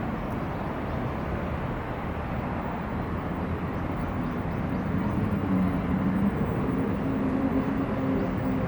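Steady low rumble of a running vehicle, with an engine hum coming in about five seconds in and slowly rising in pitch.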